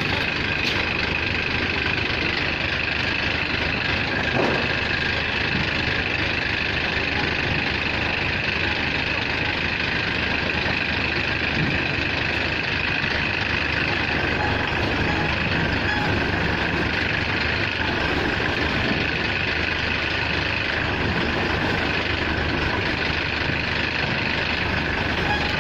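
Rice combine harvester running steadily, its engine noise topped by a steady high whine.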